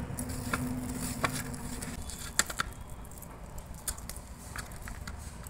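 A hand kneading and squishing a soft dough of mashed pumpkin and gram flour in a steel bowl, with a few sharp clicks of hand against the metal scattered through it.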